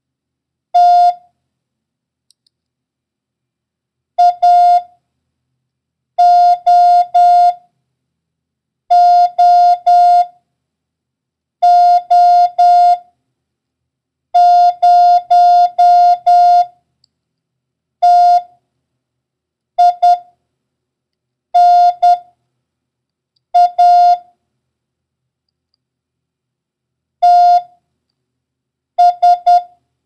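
Morse code tone at one steady pitch, sending single letters and numbers with long pauses between them as a random copy-practice run. Among them are several O's, each three dahs, and a zero, five dahs in a row.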